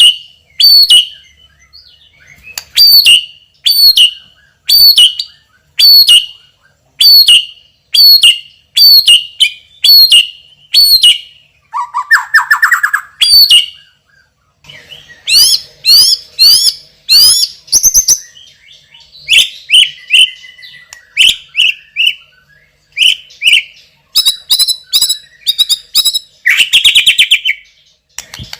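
White-rumped shama singing loudly: a sharp whistled note repeated about once a second for the first eleven seconds, then a run of varied phrases with quick rising notes and rapid chatters.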